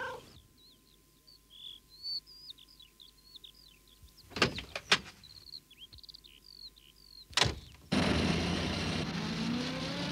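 Birds chirping in the background, broken by a few sharp clicks and clunks like a van door being shut. About eight seconds in, a small van's engine starts abruptly and runs with its pitch rising as the van pulls away.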